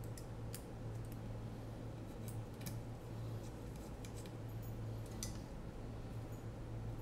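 Scattered light clicks and taps from a hex screwdriver and small screws being handled and fastened into a drone frame, over a steady low hum.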